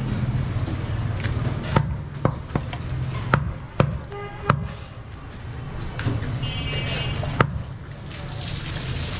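Heavy butcher's cleaver chopping through a goat leg onto a wooden log chopping block: about seven sharp chops, irregularly spaced, roughly a second apart.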